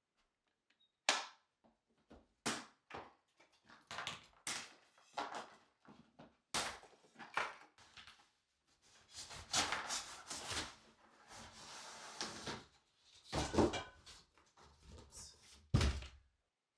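Packaging being handled and opened: a string of irregular knocks, thunks and rustling scrapes of cardboard and parts, with heavier thumps near the end.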